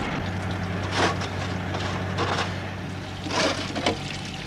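A steady low mechanical hum, with a few short clattering noises about one, two and three and a half seconds in.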